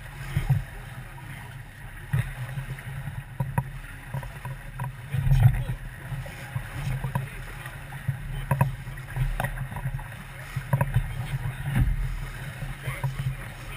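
Sailboat under way: a steady low rush of water and motion against the hull that swells at times, with scattered short knocks and clicks from the boat.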